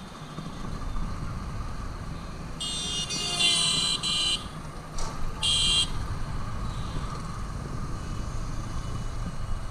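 Vehicle horns honking in street traffic: a long buzzy honk of nearly two seconds starting about two and a half seconds in, then a short honk about a second later. Underneath runs the steady rumble and road noise of riding in an open rickshaw.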